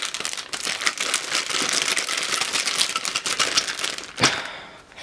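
Packaging crinkling and crackling as it is pulled and twisted by hand, in a failing attempt to get it open. About four seconds in there is one sharp snap, then the crinkling fades out.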